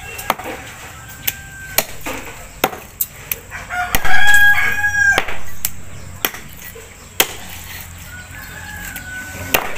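A rooster crows once about four seconds in, a loud call of about a second. Sharp knocks sound at irregular intervals throughout.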